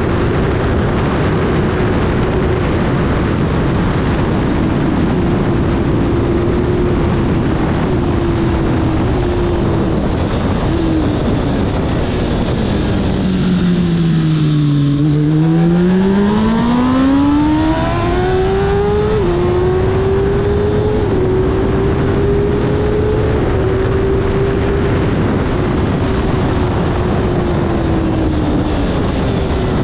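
Kawasaki ZXR750 inline-four race engine running hard at high revs, under heavy wind rush on the helmet camera. In the middle the revs fall steeply as the bike slows for a corner, then climb back through several quick upshifts and hold high.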